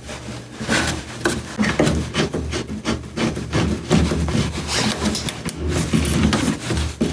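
Irregular rubbing and scraping with occasional knocks, from parts being handled and pushed together as they are fitted.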